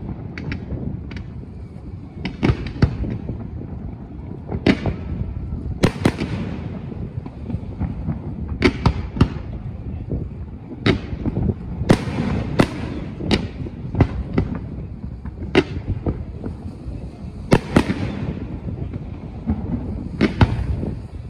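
Fireworks display: aerial shells bursting in sharp bangs, about twenty of them at irregular intervals, over a continuous low rumble.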